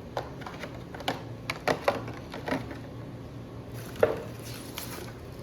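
Hard parts of a model jet kit being handled: scattered light clicks and knocks, the sharpest about four seconds in, with a short rustle of packaging around it.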